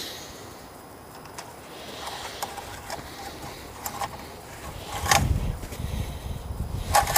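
A few light clicks and knocks as the engine oil dipstick is pulled, wiped and pushed back in to check the level, with a louder knock about five seconds in followed by a low rumble.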